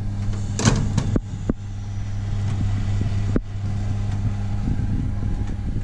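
Baking tray slid onto a metal oven rack, giving a few sharp clicks and knocks in the first second and a half and one more knock about three and a half seconds in. A steady low hum, typical of an oven's fan, runs underneath.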